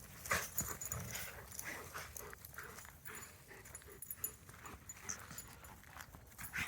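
Dogs on a walk, with short, irregular scuffs and footfalls.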